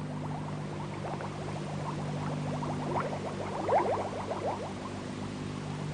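Water bubbling and gurgling in many quick, rising blips, busiest about three to four seconds in, over a steady low hum.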